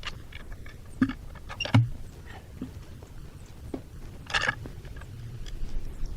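Wooden blocks being handled under a log: a few scattered knocks of wood on wood, the loudest with a dull thud almost two seconds in, and a short scrape a little after four seconds.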